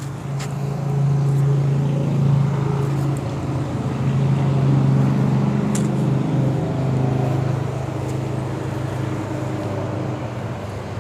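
A steady motor hum: a low, even drone with weaker wavering tones above it, with a couple of faint ticks.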